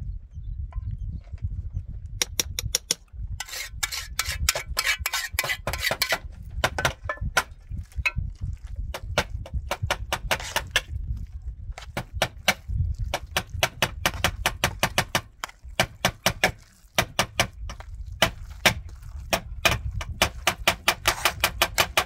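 A metal spoon and a hand clicking and scraping against a metal cooking pot in quick, uneven strokes as rice is mixed, over a steady low rumble.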